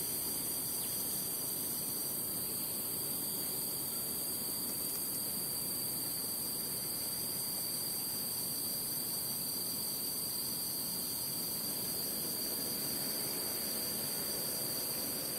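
Steady, high-pitched insect chorus.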